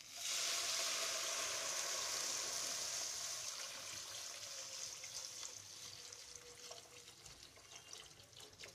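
Milk poured from a jug onto roasted makhana (fox nuts) in a pan: a steady splashing pour that starts suddenly and grows gradually quieter.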